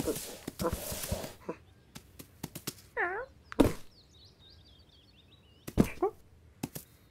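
Cartoon cat sound effects: sniffing at the start, light taps and clicks as the cat paws at a cardboard box, a short questioning cat trill about three seconds in, then a thump. Faint bird chirps sound behind it, and there is another thump with a brief cat noise near six seconds.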